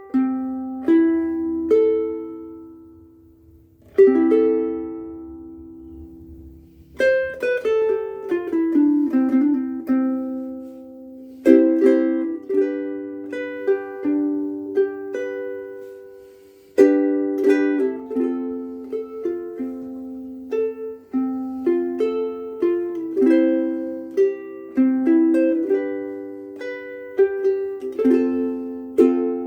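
Koaloha KSM-01 pineapple soprano ukulele strung with UkeSA strings, played solo. A few sparse plucked chords are left to ring, then from about seven seconds in comes a steadier run of plucked chords and melody notes.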